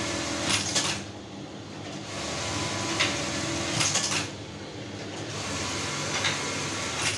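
Industrial sewing machinery: a steady motor hum with a louder mechanical rattle that comes and goes in stretches of about two seconds, sharp clicks in each, three times.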